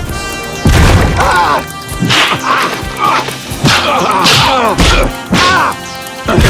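Added fight sound effects: a run of about six hard punch and kick impacts over background music.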